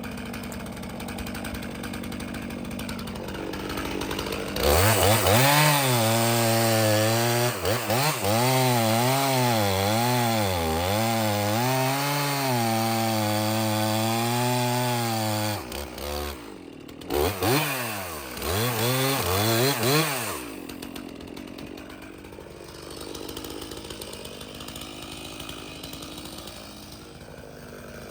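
Stihl MS 391 two-stroke chainsaw idling, then opened up to full throttle about five seconds in and cutting for roughly ten seconds, its pitch wavering as it loads and bogs in the wood. It drops off, is revved a few times in short bursts, and settles back to idle about twenty seconds in.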